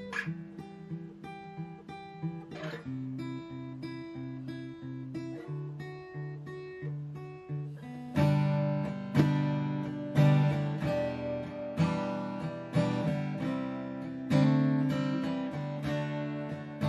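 Acoustic guitar playing a G, E minor, C, D chord progression: softer, picked chord shapes high on the neck, then about eight seconds in, louder strummed open chords.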